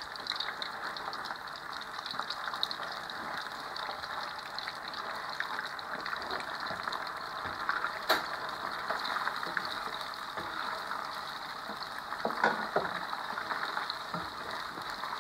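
Shrimp and squid rings coated in egg and tapioca starch frying in hot oil in a non-stick pan: a steady crackling sizzle. A single sharp tap about eight seconds in.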